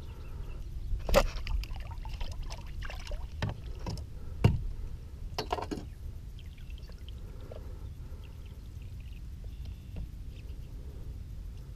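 Handling sounds as a freshly shot snakehead and the bowfishing arrow through it are worked against a fibreglass boat's gunwale: sharp knocks, the loudest about a second in and about four and a half seconds in, with scraping and rustling between them, over a steady low rumble.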